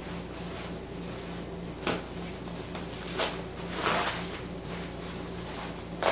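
Cardboard box and packing wrap being opened and handled: a few short scrapes and rustles about two seconds in, around three to four seconds in, and near the end, over a steady low hum.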